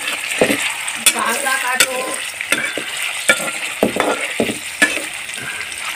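Paneer cubes frying in hot oil in a wok (kadhai), sizzling steadily, while a ladle stirs them with irregular clicks and scrapes of metal on the pan.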